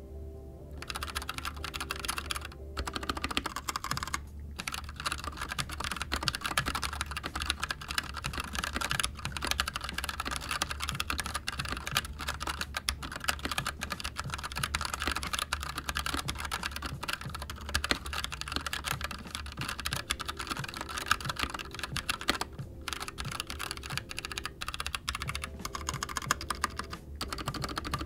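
Typing on an Anne Pro 2 60% mechanical keyboard with tactile Gateron Brown switches, as a sound test: a fast, dense stream of key clicks and bottoming-out clacks that starts about a second in, with a few brief pauses.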